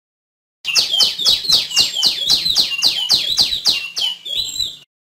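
Female tiểu my songbird calling: a quick run of about fourteen sharp notes that each fall in pitch, three or four a second, lasting about four seconds and ending on a slightly different note.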